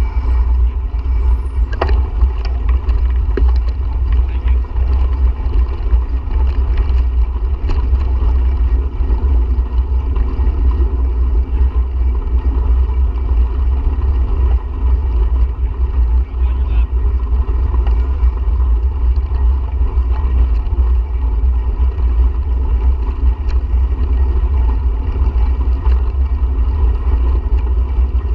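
Steady, loud low rumble of wind buffeting the microphone of a camera moving along on a bicycle.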